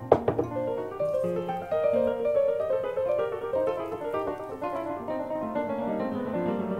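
Background piano music, with a single sharp knock just after the start.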